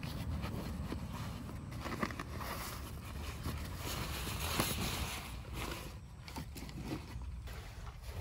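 Nylon compression sack of a Snugpak sleeping bag rustling as it is handled and unstrapped, with scattered clicks from the straps and buckles, loudest about halfway through, and the bag being pulled out near the end. A steady low rumble runs underneath.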